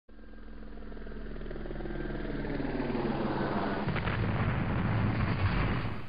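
A low rumbling sound effect: it starts as a hum of several steady low tones, swells steadily louder into a heavy rumble, and cuts off suddenly at the end.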